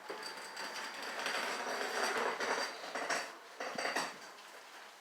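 Garage door opener running while a heavy wood garage door travels, with metallic rattling and several clanks. The clatter dies away about four seconds in.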